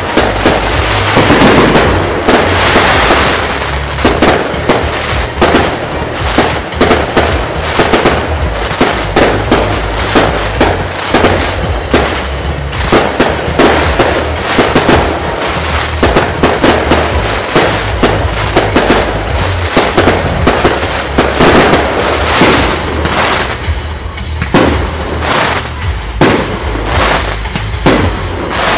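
Fireworks display: a dense, continuous run of aerial shell bursts and crackling, many sharp reports each second.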